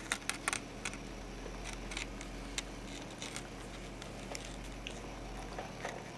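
Quiet room tone with a steady low hum, and a handheld camera being handled: faint, scattered clicks and light rustles.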